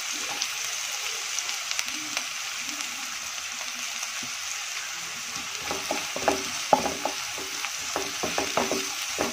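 Chopped onions sizzling in butter in a kadhai, a steady frying hiss. About halfway through, a wooden spatula starts stirring them, adding a quick run of light scrapes and taps against the pan.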